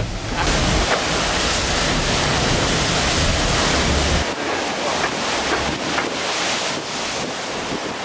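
Steady rush of wind and water on the deck of the Banque Populaire 5 maxi trimaran sailing fast at night. Wind buffets the microphone with a heavy low rumble that drops away about four seconds in.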